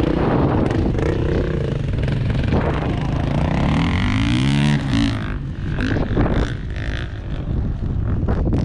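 Enduro motorcycle engine running under load on a rough track, its pitch changing with the throttle and rising sharply in a rev about four seconds in.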